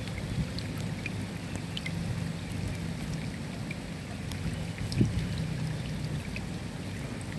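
Rain falling, with scattered drop ticks over a steady low rumble. A single sharp thump comes about five seconds in.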